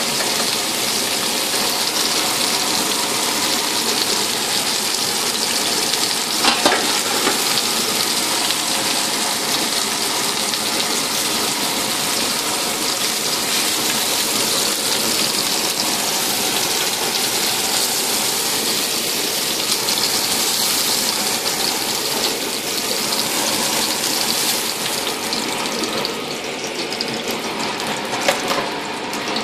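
Vegetable skewers sizzling in hot oil in a frying pan: a steady loud sizzle, with a brief knock about seven seconds in and another near the end. The sizzle thins over the last few seconds.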